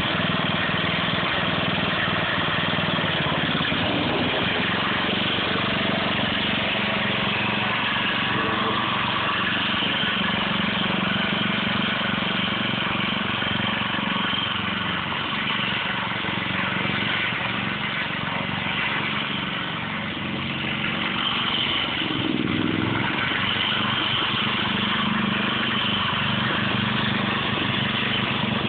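Small engine of a homemade Snapper-kart go-kart running steadily at a fairly constant speed, easing off briefly about two-thirds of the way through.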